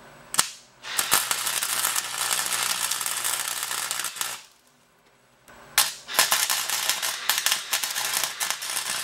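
Electric arc welding crackling and sizzling as steel DOM tubing is tack-welded onto a steel rod, throwing spatter. It runs twice, about three seconds each time, with a short pause between; the second run starts with a sharp click.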